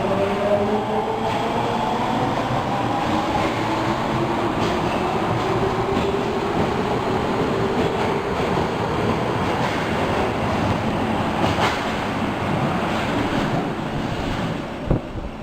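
Osaka Metro Tanimachi Line subway train slowing into a station: its traction motor whine falls in pitch over the first few seconds under a steady rolling rumble with light wheel clicks. The rumble dies down near the end, with one sharp click just before it.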